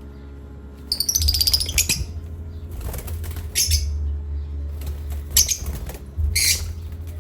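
A pet parrot flapping its wings in several short bursts. The first and longest starts about a second in, and shorter flurries follow through the rest of the stretch.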